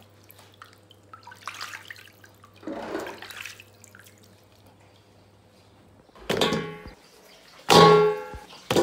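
Hands squeezing and swishing chunks of raw meat in a stainless steel basin of water, soft sloshing and splashing. Near the end, two loud metallic clanks of a stainless steel bowl, each ringing briefly; the second is the loudest sound.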